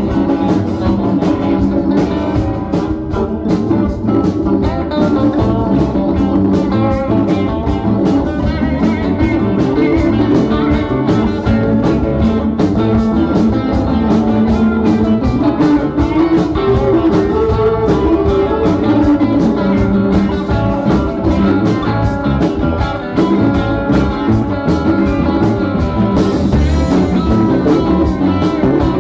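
Live rock band playing an instrumental passage: electric guitars, electric bass, drum kit and keyboard, with a steady drumbeat and no singing.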